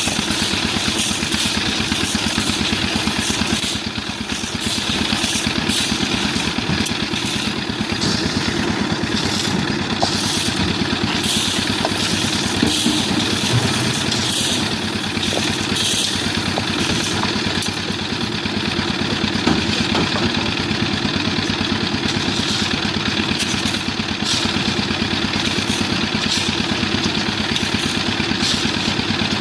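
Concrete mixer machine's engine running steadily, with short, irregular rattles over it.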